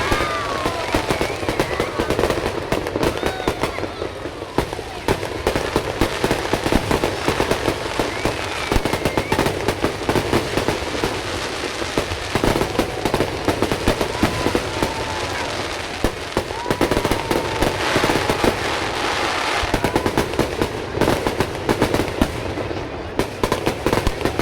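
Fireworks display going off continuously: rapid overlapping bangs and crackling, with a denser flurry of bursts a little before the end.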